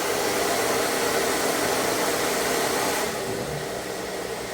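Ionic hair dryer blowing steadily on its second speed setting, a rushing airflow noise that drops to a softer, duller level about three seconds in.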